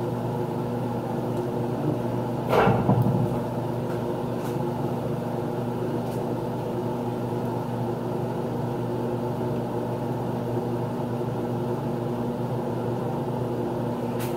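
A steady mechanical hum from a kitchen appliance's motor, with a brief clatter about two and a half seconds in and a few faint clicks later.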